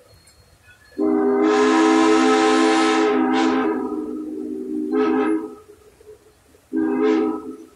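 Steam locomotive's chime whistle blowing one long blast, then a short blast near the end.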